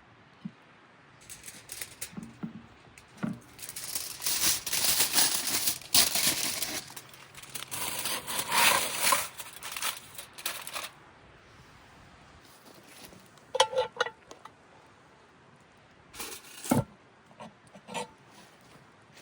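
Hands working at a campfire Dutch oven: several seconds of crinkling and scraping, then a few sharp clicks and a single knock.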